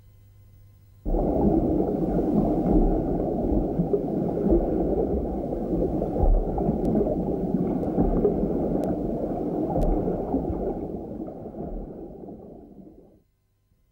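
Loud, muffled rushing noise with no clear pitch, in the manner of water heard from below the surface. It starts abruptly about a second in, fades over the last few seconds and cuts off shortly before the end.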